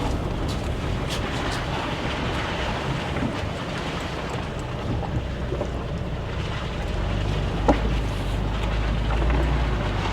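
Ford Raptor pickup driving a rough dirt trail: steady engine rumble with road and tyre noise. The engine pulls harder over the last few seconds, and there is one sharp knock a little before that.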